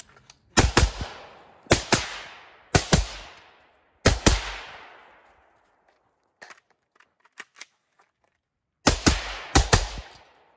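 AR-style rifle fired in quick pairs of shots, each shot echoing off the woods: about four pairs in the first four seconds, then a pause of about four seconds, then more pairs near the end.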